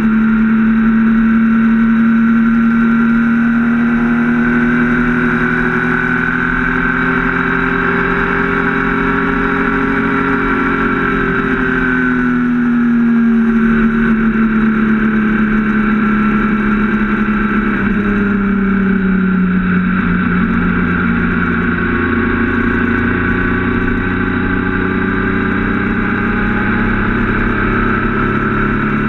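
Triumph Speed Triple RS 1050's three-cylinder engine running steadily under way, heard from on the bike. The engine note drops about twelve seconds in and again a few seconds later, then climbs back.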